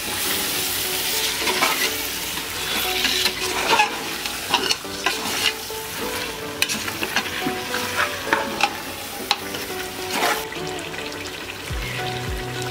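Raw mutton pieces being stirred into sizzling masala in a pressure cooker pot, with frequent knocks and scrapes against the pot. The sizzling fades about ten seconds in.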